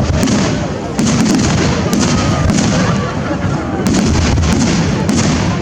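Fireworks display: a rapid, continuous run of bangs and crackles, several a second, over a low rumble, with crowd voices underneath.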